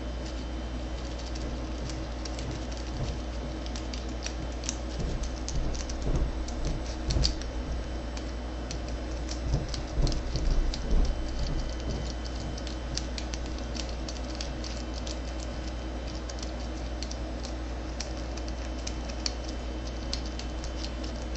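Lock pick and tension wrench working the pin stack of a door lock cylinder with a Weiser keyway: many small scattered clicks and scrapes, with a few heavier knocks from handling the lock between about four and seven seconds and again around ten to eleven seconds in, over a steady low hum.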